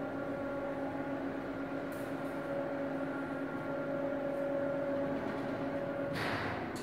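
Electric lift motor of a charcoal grill raising its grates, a steady hum that stops about six seconds in, followed by a short burst of noise.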